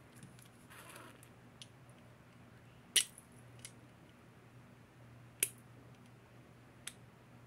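Sharp little clicks of a metal enamel daisy brooch being handled and fiddled with, two louder clicks about three and five and a half seconds in, with a few fainter ones and a soft rustle between.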